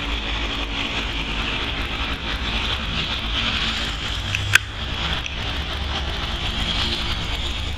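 Steady outdoor background noise, a low rumble under a hiss, with one sharp click about four and a half seconds in.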